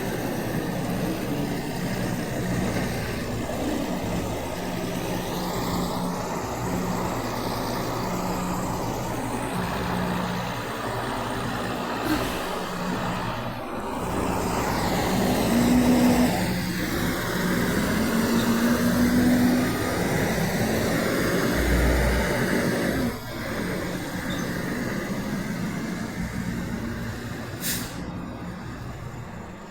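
Semi trucks' diesel engines running as they move through, rising to their loudest about halfway through, with a short hiss near the end.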